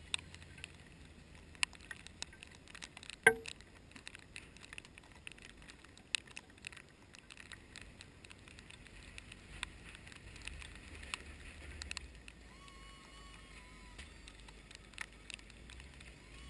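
Faint low rumble of a truck engine at work plowing snow, with scattered clicks and ticks and one sharp click about three seconds in. A faint wavering whistle comes in late.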